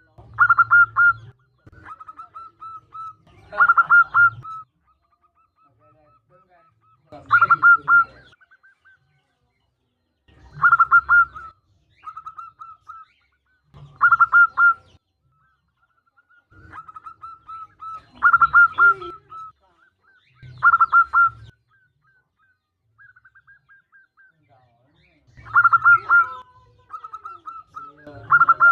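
Zebra dove cooing: loud trilled phrases of rapid staccato notes about every three to four seconds, with softer quick runs of notes between them. The call is presented as a female zebra dove calling to a male.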